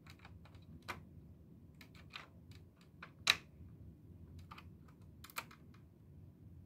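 Small plastic clicks and taps from the pop-up headlights of a plastic 1/16-scale model car being worked by hand. The clicks are scattered and irregular, and the loudest comes about three seconds in.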